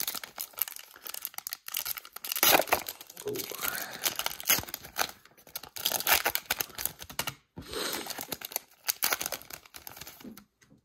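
A Topps 2021 F1 trading card pack wrapper being torn open by hand, crinkling and ripping in a run of short crackly tears, loudest about two and a half seconds in.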